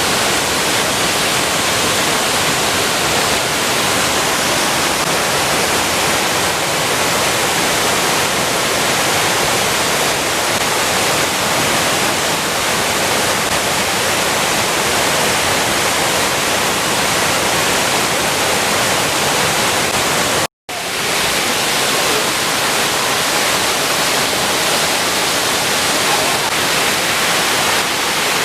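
Steady rushing of Shiraito Falls, a broad curtain of spring water spilling down a low rock face. It breaks off in a split-second gap of silence about twenty seconds in.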